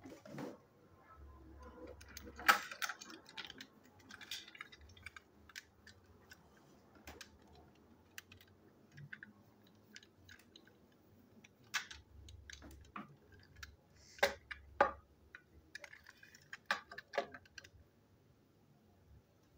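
Irregular clicks and light knocks of hard plastic toy train parts being handled, moved and set down on a tabletop. The loudest click comes about two and a half seconds in, with a cluster of sharper clicks in the second half.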